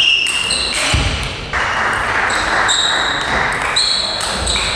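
Table tennis rally: the plastic ball clicking sharply off the rubber-faced bats and the table in quick succession, each hit leaving a short high ping. A stretch of rushing noise comes about a third of the way in.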